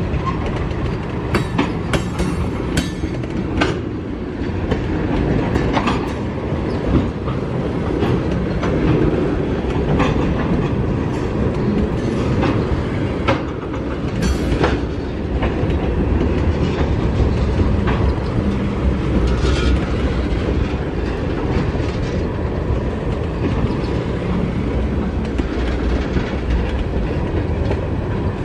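Freight train of tank cars rolling past close by: a steady rumble of steel wheels with clickety-clack over the rail joints and scattered sharp metallic clicks.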